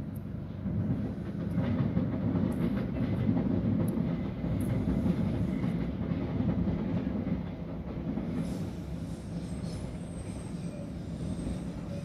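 Low, dense vehicle noise that grows louder about a second in and eases off after about eight seconds, with a few faint high ticks over it.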